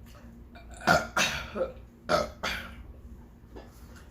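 A person burping loudly several times in quick succession, starting about a second in.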